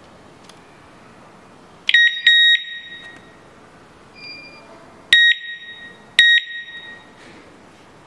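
Wireless alarm siren unit giving short, loud electronic beeps at one high pitch: a double beep about two seconds in, then two single beeps about a second apart. A fainter beep of a different pitch sounds between them.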